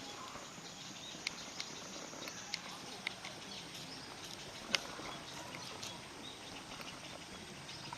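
Scattered sharp clicks and taps, irregularly spaced, one louder than the rest a little past the middle, over a steady outdoor background hubbub.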